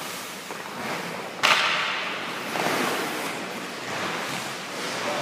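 Hockey goalie's skate blades scraping across the ice in a series of pushes and stops, the first a sharp, loud scrape about a second and a half in, then softer scrapes about every second.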